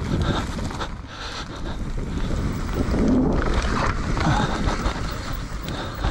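Enduro dirt bike running along a trail, its engine mixed with wind buffeting on the helmet camera's microphone.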